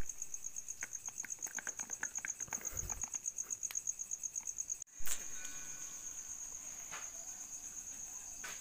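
Insect chirping in a steady train of high-pitched pulses, about ten a second, with a brief dropout about five seconds in. Faint rustles and ticks come in the first three seconds.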